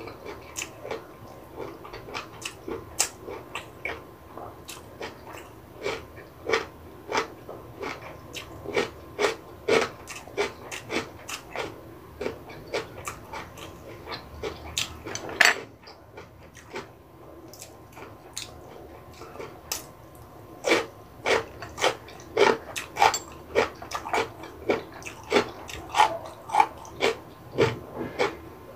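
Close-miked chewing of crunchy food with the mouth closed: a run of crisp crunches, about two a second, that stops for a few seconds past the middle and then comes back stronger.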